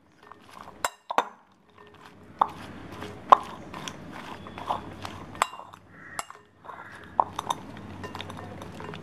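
Dried anchovies being tossed and rubbed by hand with chili powder and turmeric in a ceramic bowl: scattered light clicks and clinks of the brittle fish and fingers against the bowl.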